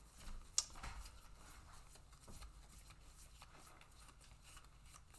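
Faint handling of trading cards on a playmat: soft rustles and light clicks, with one sharper click about half a second in.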